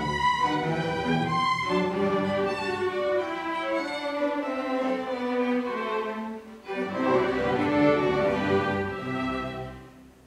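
A solo violin playing classical music with a youth orchestra's strings accompanying. The music breaks off briefly about six and a half seconds in, then dies away almost to silence near the end.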